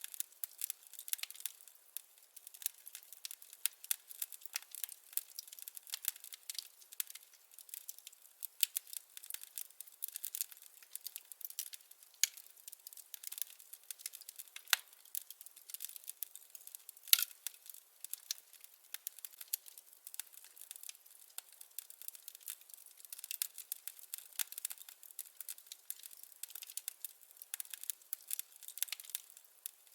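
Burning firewood crackling: a steady, irregular run of small sharp pops and snaps, thin and bright with no low roar, and one louder pop about 17 seconds in.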